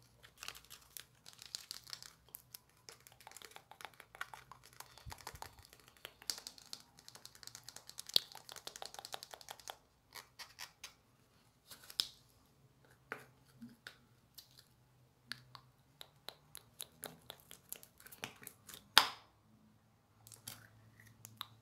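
Sticky slime crackling and clicking as it is handled in a small plastic jar, dense crackles at first, then sparser clicks while the jar's screw cap is twisted. Near the end there is one sharp pop as the cap pulls away from the slime.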